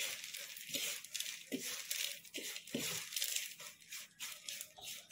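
Crisp deep-fried chana dal rattling and rustling as it is tossed and mixed by hand with spice powders on a plate, a steady crackle of many small dry grains knocking together and against the plate.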